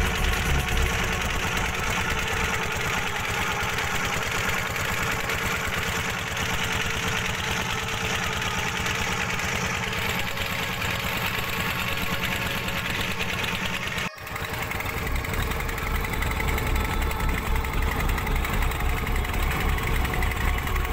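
Fishing boat's engine running steadily with a low, pulsing rumble. It breaks off briefly about fourteen seconds in, and the low rumble is stronger afterwards.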